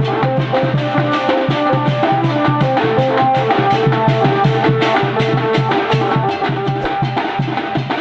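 Koraputia Desia band party playing dance music: several drums and cymbals beat a fast, steady rhythm under a melody of held notes.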